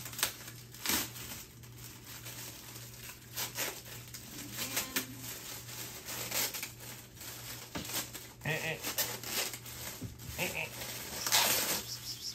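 Plastic packaging crinkling and rustling in irregular bursts as an item is unwrapped by hand. About two thirds of the way through, a cat gives a couple of short meows.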